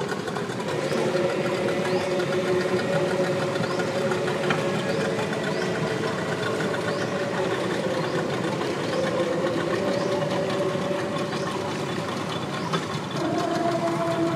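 Boat engine running steadily, its pitch stepping up near the end.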